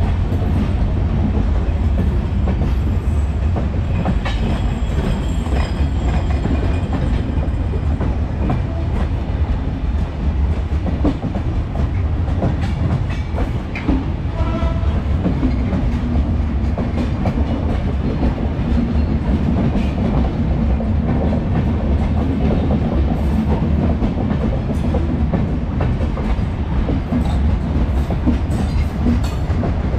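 Intercity passenger coaches rolling past at close range: a steady heavy rumble, with the wheels clicking over the rail joints throughout.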